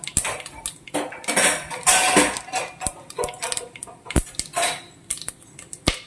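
Fennel seeds and whole spices sizzling and popping in hot oil and ghee in a metal pot, with many sharp clicks and a louder rush of sizzle around two seconds in.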